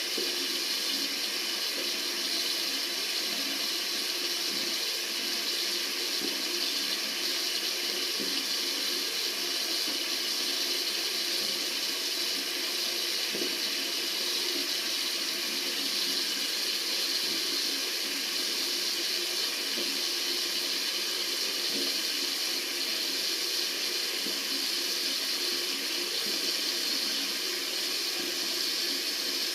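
Water running steadily from a tap, an even, unbroken rush of water with its energy mostly in the upper range.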